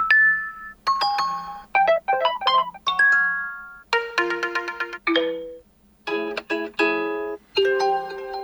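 Huawei P50 Pro notification tones previewed one after another: a run of short melodic chimes of a few notes each, with brief pauses between tones.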